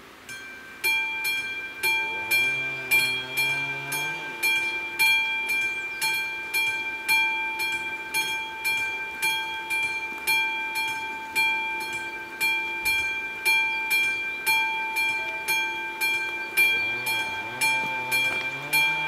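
Level-crossing warning bell starting up as the crossing activates for an approaching train, then striking steadily about twice a second with a bright ringing tone.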